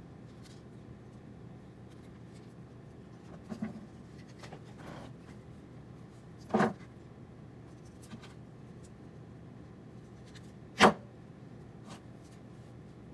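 A few sharp clicks and knocks of small hand tools and wires being handled during wiring work, the loudest one about eleven seconds in, over a steady low hum.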